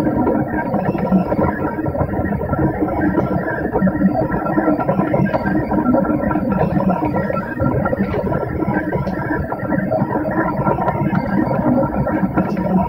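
Background guitar music.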